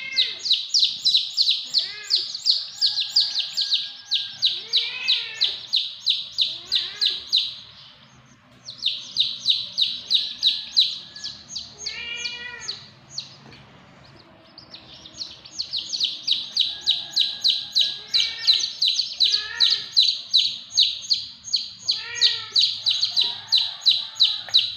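Chicks peeping rapidly and continuously, about five high peeps a second, with short lulls about eight and thirteen seconds in. A few lower, arching calls sound among the peeps.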